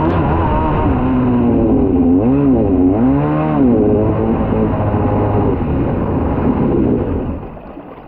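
Kawasaki 650SX stand-up jet ski's two-stroke twin engine running under throttle, its pitch dipping and climbing back twice around the middle as the throttle is eased and reopened, then falling away near the end as the throttle is released.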